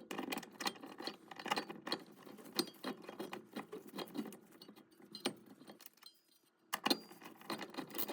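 Irregular small metallic clicks and rattles of a screwdriver and hardware being worked on a washing machine's clutch assembly, with a short pause about six seconds in.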